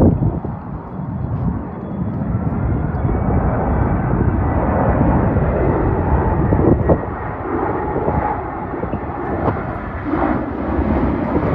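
Airbus A380 on final approach, passing low overhead: the steady rumble of its four jet engines, with a faint thin whine above it.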